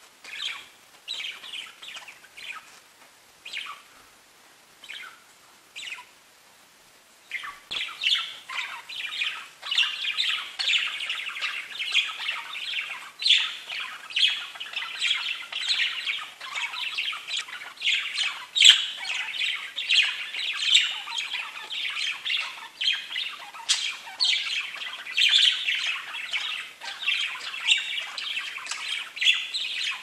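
Several pet budgerigars chirping: scattered single chirps at first, then from about seven seconds in a dense, continuous chatter of overlapping chirps and warbles.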